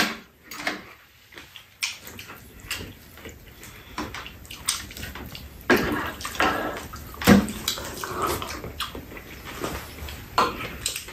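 Eating sounds: wet slurping and chewing in irregular bursts, with spoons and chopsticks clicking against bowls and a frying pan.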